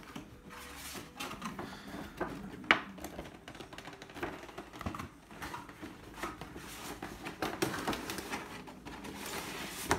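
Cardboard figure box with a clear plastic window being handled and opened: scattered rustling with light taps and clicks, and one sharper knock about three seconds in.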